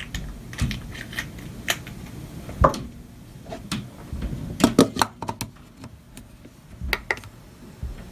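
Irregular light clicks and taps, like small objects being handled, busiest about five seconds in, over a low background hum.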